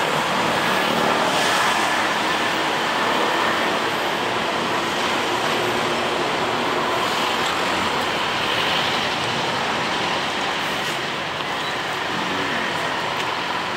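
Steady road-traffic noise, an even wash of sound with no single event standing out.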